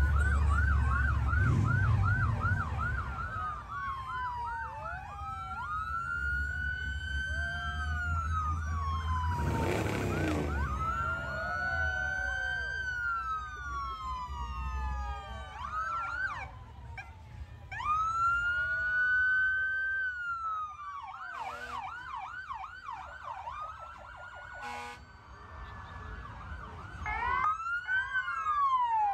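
Emergency vehicle sirens passing, switching between a slow rising-and-falling wail and a fast yelp, with several sirens overlapping near the end. Engine rumble sounds early on, and there is a short loud blast about ten seconds in.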